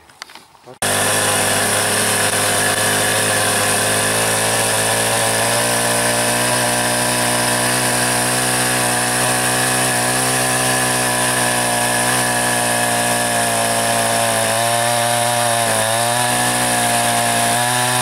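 Soyuz semi-professional two-stroke petrol chainsaw running at high revs while cutting down through a log, cutting in abruptly about a second in. Its pitch holds steady, then wavers and dips a few seconds before the end as the chain bogs into the wood.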